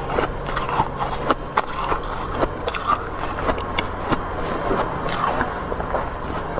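Metal ladle scraping and scooping packed frost from the walls of a freezer compartment: a run of irregular scrapes and sharp clicks.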